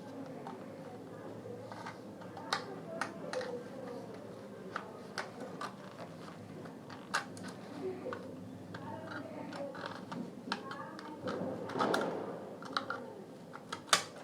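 A pry tool working at the grille of a portable Bluetooth speaker, making irregular small clicks, taps and scrapes, with a longer scrape near the end.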